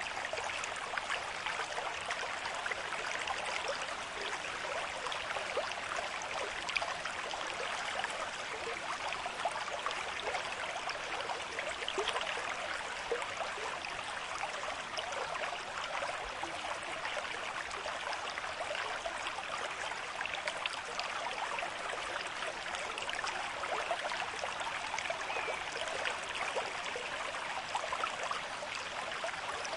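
A river stream with moderate flow: water running and splashing steadily over stones, with fine trickling and gurgling detail.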